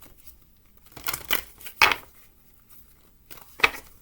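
A few brief rustling snaps of something being handled: a cluster about a second in, a loud one just before two seconds, and another near the end.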